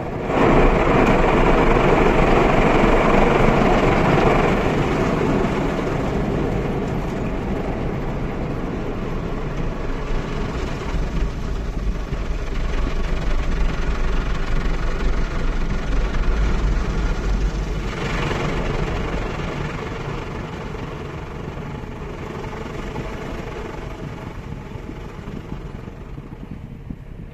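Car wash machinery heard from inside the car's cabin: a steady rushing noise over a deep rumble, loudest for the first few seconds, then easing and dropping again about 18 seconds in.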